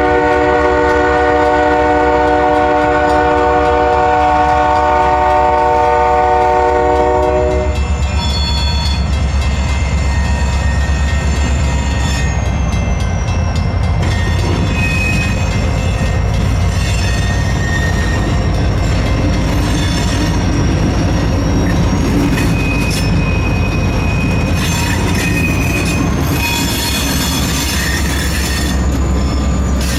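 Freight train's diesel locomotive horn sounding one long chord that cuts off about seven seconds in. The train then rolls on with a steady low rumble and thin, wavering high squeals from its wheels on the rails.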